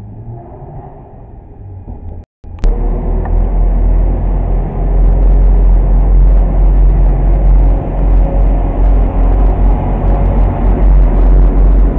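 A quieter rumble at first, then, after a sudden cut about two seconds in, the loud, close, steady rumble of a Class 172 diesel multiple unit moving along the platform, its underfloor diesel engines droning low.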